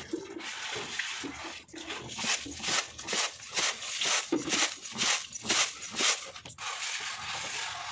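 Rice grains hissing and rattling on a woven bamboo winnowing tray as the tray is shaken and tossed. From about two seconds in the tossing comes in quick strokes, about three a second, and near the end it settles into a steadier shaking hiss.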